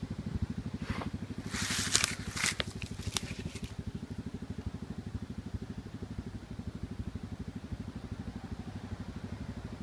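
Single-cylinder four-stroke Honda sport quad engine idling with an even, steady thump. About a second in, there are a few seconds of sharp crackling and scraping, loudest about two seconds in.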